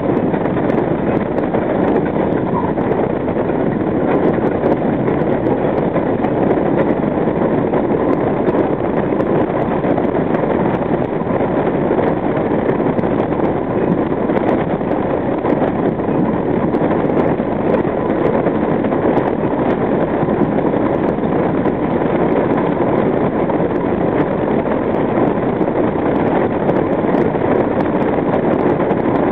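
R42 subway train running along elevated track, a steady, loud noise of wheels on rails heard from the front of the train.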